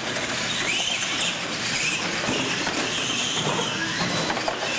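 Electric drive motors of radio-controlled monster trucks whining, the pitch rising and falling as the trucks accelerate and race.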